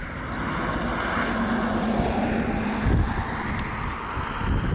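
Cessna 525B CitationJet's twin turbofan engines on final approach: a steady jet rush that grows louder over the first two seconds, with a low hum under it. Low wind rumbles on the microphone about three seconds in and again near the end.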